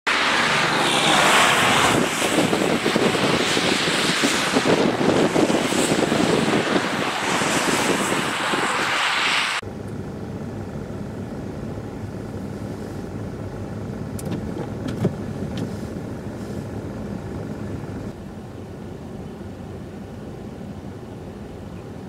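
Loud, fluctuating rushing noise of blizzard wind and passing road traffic. It cuts off abruptly about ten seconds in to a quieter, steady low vehicle hum with a few faint ticks, which drops a little lower near the end.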